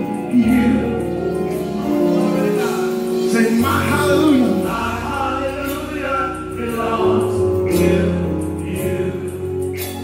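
Gospel praise team of several men and women singing together into handheld microphones, over a backing of held low bass notes that change every few seconds.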